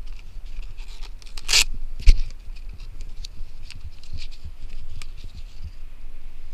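Clothing rustle and scraping against a body-worn camera's microphone, with a short loud scrape about one and a half seconds in and a sharp click just after, over a steady low rumble.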